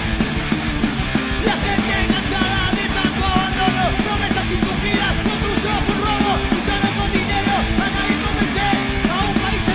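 Loud, fast punk rock song: distorted electric guitars and drums, with a shouted vocal line over the band.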